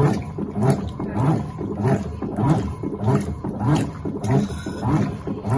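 Electrolux LTA15 top-loading washing machine agitating during its rinse: the agitator swishes the clothes back and forth in the water with a slow, regular stroke, about one every 0.6 seconds.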